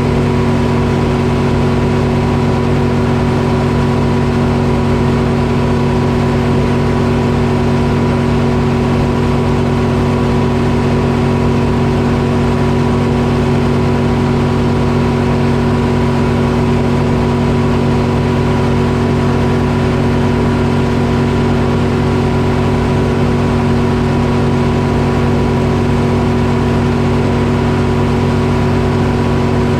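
Detroit Diesel engine powering a Frick sawmill, running at a constant speed with a steady drone that does not change in pitch.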